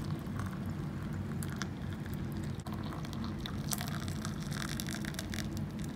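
Hot water poured from a metal kettle into two ceramic mugs over tea bags, one mug and then the other: a steady splashing pour with a brief break between the two.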